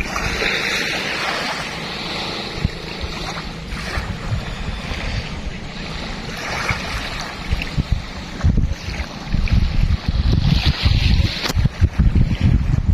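Sea waves washing onto the shore, with wind buffeting the microphone in gusts that grow stronger in the last few seconds.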